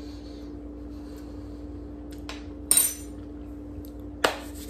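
Two sharp clinks, about a second and a half apart, the first with a bright ringing edge, over a steady low hum.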